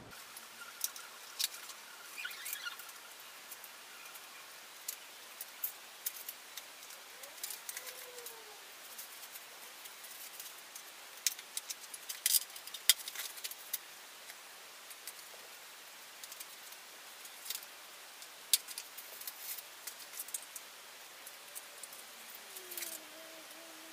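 Scattered sharp snips and clicks with light rustling as a new folding bike is unpacked: scissors cutting the packing loose, and foam protectors and cardboard wrapping pulled off the frame.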